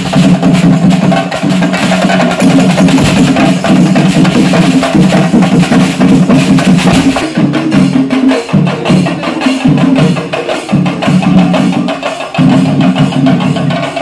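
Kerala temple drumming (chenda melam): chenda drums struck in fast, dense strokes, with a pulsing low beat and cymbals ringing above.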